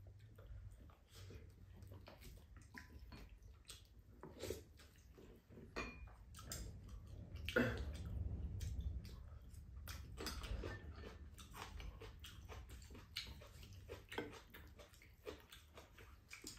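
People eating at a table: chewing and mouthfuls taken off spoons, with scattered light clicks of chopsticks and metal spoons against ceramic bowls, over a low steady hum.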